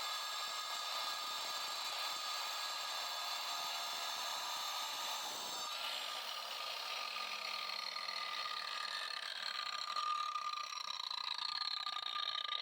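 DeWalt DWE490 9-inch angle grinder with a diamond disc running at full speed with a steady high whine and grinding noise. About halfway through, its pitch starts falling steadily as the disc winds down.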